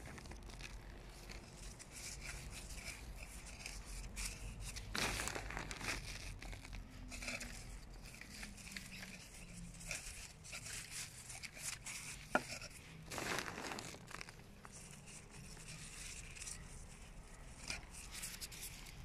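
Irregular crinkling and rustling of a clear plastic glove as the hand presses and handles potting soil in a terracotta pot, with one sharp click about twelve seconds in.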